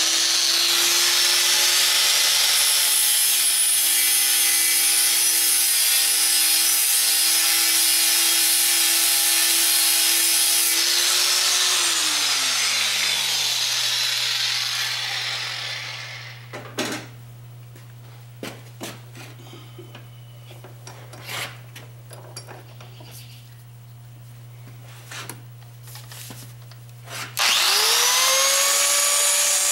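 Handheld angle grinder with a flap disc running at full speed, then switched off about eleven seconds in and whining down to a stop. After a quieter stretch with a few sharp knocks, it is switched on again near the end, its whine rising quickly as it comes up to speed.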